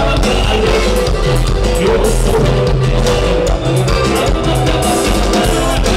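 Live Mexican regional dance band playing loud, with a steady beat under bass notes and sustained melody instruments.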